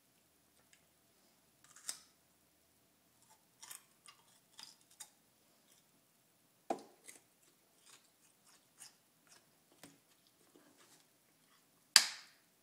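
Mouth noises of someone biting and chewing a raw garlic clove: scattered short, crisp crunches and clicks. Near the end, a louder crackle of a plastic water bottle as it is raised to drink.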